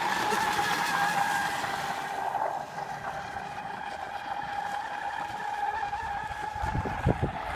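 RC catamaran's electric boat motor running wide open, a steady high-pitched whine that slowly grows fainter as the boat runs away. A few low thumps near the end.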